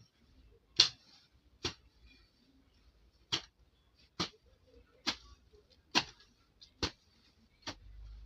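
Hand weeding tool chopping rhythmically into grassy soil: eight sharp strokes, about one a second, with one stroke skipped near the middle.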